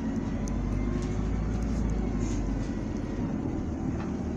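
2019 Isuzu Erga city bus under way: its four-cylinder turbo diesel running steadily with road noise and a strong low hum, a faint whine above it and a few light rattling ticks.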